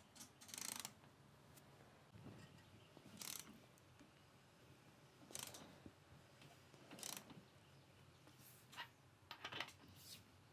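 Faint ratchet wrench clicking in short bursts every second or two, turning a Subaru FA/FB engine's crankshaft clockwise by hand through a barring socket.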